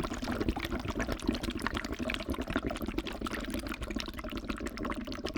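Liquid pouring and trickling steadily, a dense patter of many tiny splashes and droplets.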